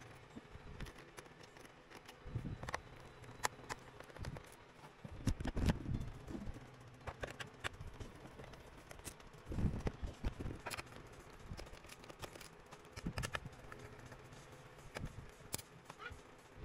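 Scattered small clicks and a few low knocks: a screwdriver working screws out of a laptop's plastic underside, with screws and the case handled by hand.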